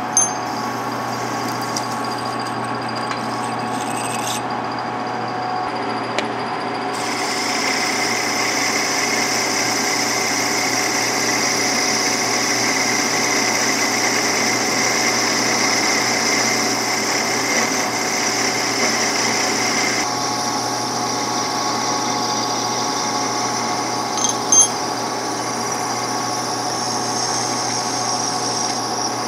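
Metal lathe running steadily while washers are turned on it, the cutting tool and a file working the spinning part. The running changes in character twice. There is a brief sharp knock about three-quarters of the way through.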